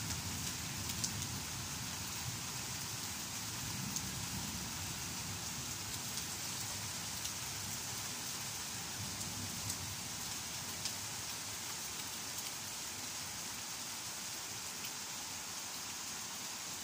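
Steady rain falling on tree leaves and wet ground, with a few scattered sharp ticks of single drops striking close by.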